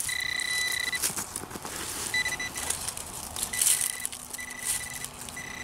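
Metal detecting pinpointer giving a steady high beep tone that cuts in and out several times as it is moved over a metal target in the dirt, with gloved hands scratching through soil and dry leaves.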